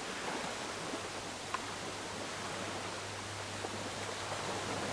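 Steady wash of ocean waves on a beach, with a faint low hum under it and a small click about one and a half seconds in.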